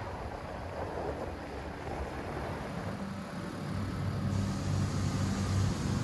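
Motor scooter engine running while riding, with wind rushing over the microphone; a steady low engine hum comes up about halfway through and grows louder.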